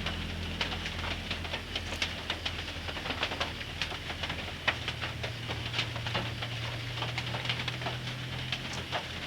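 Limes being squeezed by hand, juice dripping into water: many small irregular clicks and drips, over a faint steady low hum.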